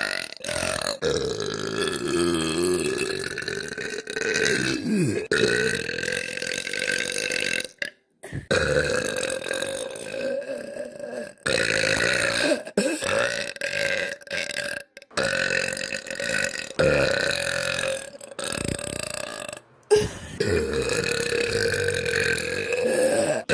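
A girl burping: a string of long, drawn-out burps, several held for a few seconds each, with a wavering pitch and abrupt short gaps between one burp and the next.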